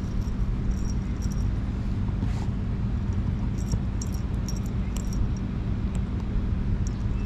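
A dog licking: quick wet clicks in scattered clusters over a steady low rumble.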